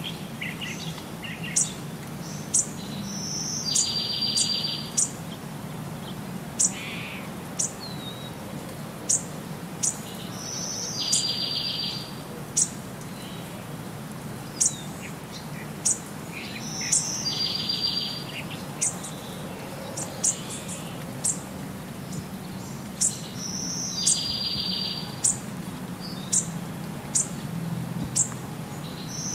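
Birdsong: sharp high chirps about once a second, with a rapid trill lasting just over a second that comes back about every six to seven seconds in a repeating pattern, over a faint steady low hum.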